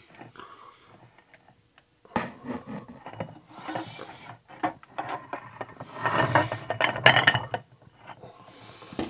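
Irregular rubbing, scraping and clattering of objects handled right at the phone's microphone. It starts about two seconds in and is loudest with a run of sharp clicks about six to seven seconds in.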